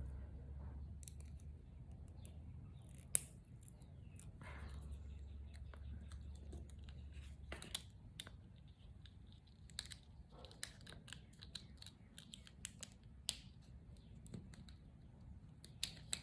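Cardstock pieces of a pop-up card being handled and fitted together: faint scattered paper rustles and small clicks, with one sharper click about three seconds in.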